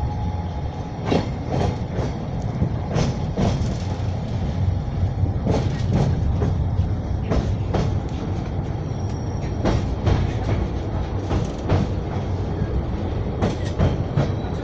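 Small-gauge passenger train running on the rails: a steady low rumble, with wheels clicking over rail joints in quick pairs every second or two.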